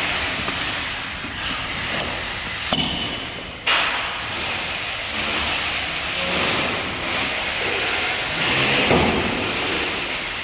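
Work-site din: a steady background noise broken by a few sharp knocks and thuds in the first four seconds, the loudest a little under four seconds in.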